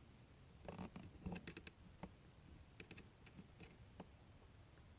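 Faint, scattered clicks and light taps of a fuel pump being worked into its sheet-metal hanger bracket, the metal parts knocking together as they are handled.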